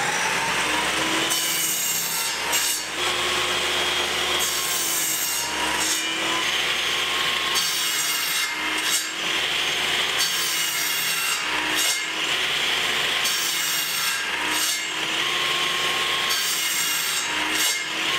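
Table saw running steadily and making a series of short crosscuts through plywood, one about every one to two seconds. The motor's pitch dips briefly with each cut as the blade takes the load.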